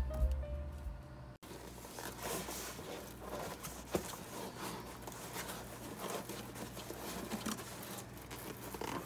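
Background music cuts off after about a second. Then a silver foil insulation sheet rustles and crinkles as it is handled and pressed up against a van's metal roof, with scattered small taps and one sharper knock about four seconds in.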